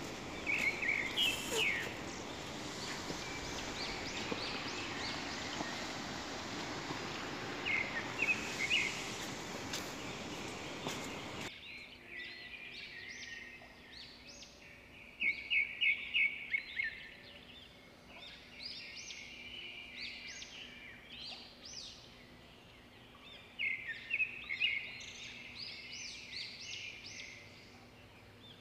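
Birds chirping in short bursts of repeated calls every few seconds, over a steady hiss that stops suddenly about eleven seconds in.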